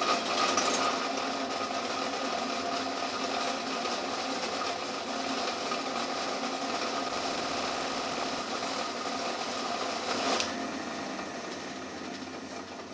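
Benchtop drill press running steadily with a motor whine as a small twist bit drills pin holes through a walnut knife handle and its saw-blade steel blade. The higher part of the sound drops away about ten seconds in.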